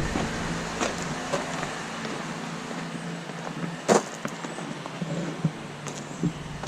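A motor vehicle engine running steadily, with a few scattered clicks and one sharp clunk about four seconds in.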